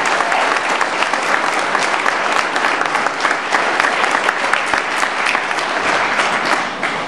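Crowd applauding, a dense patter of many hands clapping that dies down near the end.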